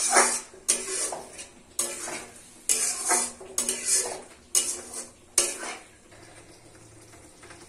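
A metal spoon scraping and stirring pea curry in a metal pan on a gas stove, in repeated sharp strokes about a second apart. The strokes stop about five and a half seconds in, leaving a quieter, low frying sound.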